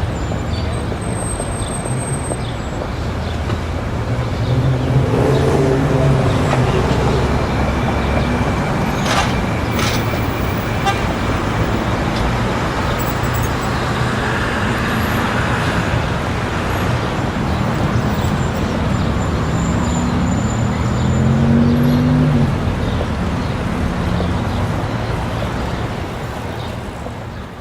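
Busy city street ambience: a steady wash of traffic and crowd chatter, with vehicle engines swelling louder as they pass about five seconds in and again near the end.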